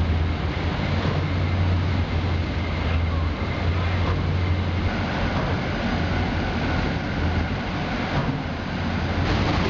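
Industrial stretch-film shredder and its discharge conveyor running while shredding plastic film: a steady, loud machine noise with a deep hum.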